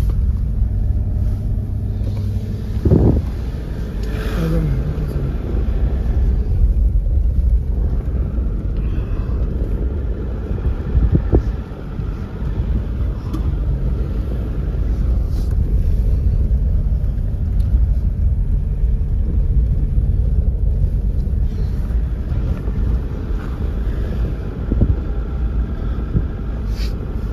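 A vehicle driving, with a steady low engine and road rumble.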